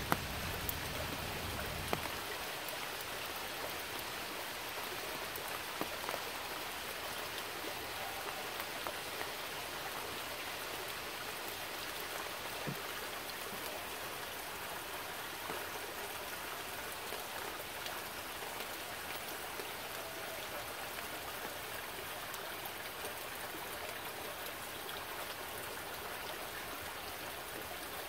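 Steady rain falling, with scattered single drops ticking, over a shallow stream running among rocks. A low rumble stops about two seconds in.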